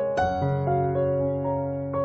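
Background piano music: single notes struck one after another at an unhurried pace, each ringing on and fading, over a held low bass note.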